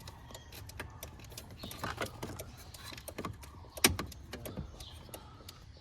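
Light scattered clicks and taps of small parts being handled, with one sharp, louder click about four seconds in.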